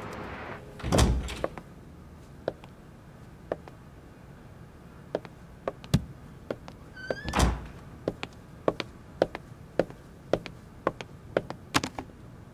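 A heavy thud about a second in. Later a door gives a short squeak and shuts with a thud, followed by footsteps clicking on a hard floor about twice a second.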